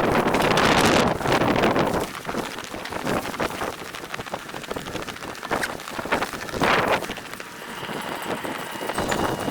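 Blizzard wind buffeting the microphone: a loud gust for the first two seconds, easing to a quieter, rustling rush with a brief gust again near the end.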